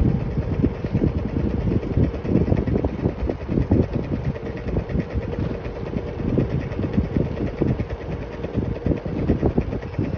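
Scooter ride noise: wind buffeting the microphone in uneven gusts over the scooter's steady running sound.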